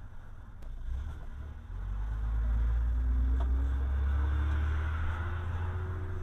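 Car driving, its low engine and road rumble heard from inside the cabin, getting louder about two seconds in, with the engine note rising a few times.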